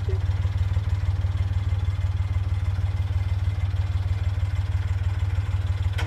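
Narrowboat's diesel engine running steadily under way, a low, even pulsing hum.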